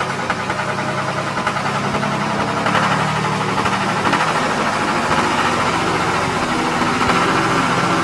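Mini tractor engine running steadily with a rapid knocking beat as it hauls its loaded trolley, getting a little louder about three seconds in.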